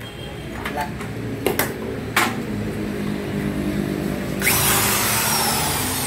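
Electric drill running with a steady motor hum, a few sharp clicks in the first couple of seconds, then a sudden harsh hiss about four and a half seconds in as the bit starts cutting.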